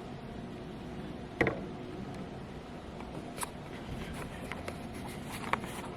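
Steady room noise with a few light knocks and clicks, the loudest about a second and a half in and smaller ones later.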